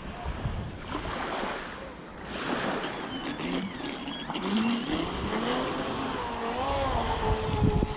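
Electric motor of an Inception RC speedboat, run on 6S LiPo batteries, whining over splashing water and wind noise. Its pitch climbs from about two and a half seconds in, then wavers up and down with the throttle.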